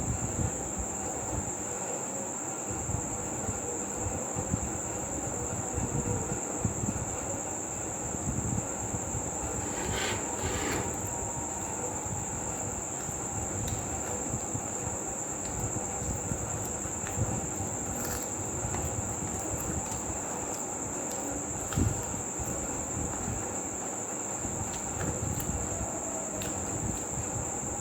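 Crickets chirping, a steady high-pitched trill that never breaks, over a low rumbling background with scattered soft clicks and a couple of brief sharper clatters.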